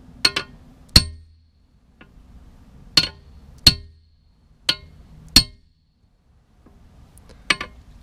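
Hammer blows on a tire spoon against a dented Yamaha YZ 125 dirt-bike exhaust header, hammering out a crease: about nine sharp metallic clangs with a short ring, some in quick pairs, at an irregular pace.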